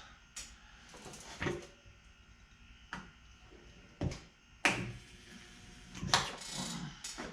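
Sharp, irregular metallic clicks and knocks from dent-pulling work on the Suburban's thin sheet-metal body panel, about six over several seconds, the loudest a little past halfway.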